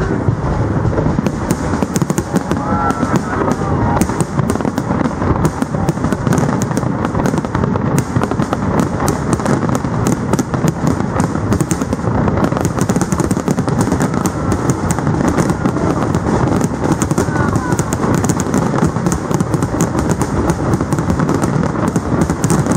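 Large aerial fireworks display going off without pause: a dense, rapid barrage of bangs and crackling.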